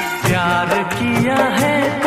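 Background Bollywood-style song with singing and a steady beat.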